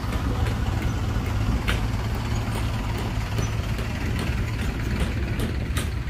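Heavy earthmoving machine's diesel engine running steadily with a deep, even rumble, and a couple of faint sharp clicks or clanks over it.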